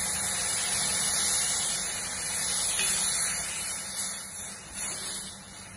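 Water poured into a hot steel kadai of oil-fried masala, hissing and sizzling as it hits the hot oil; the hiss fades toward the end.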